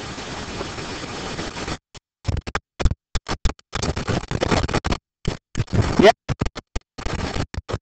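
Steady hiss of background noise in the recording. About two seconds in it breaks up into short choppy fragments that cut in and out, with dead silences between them.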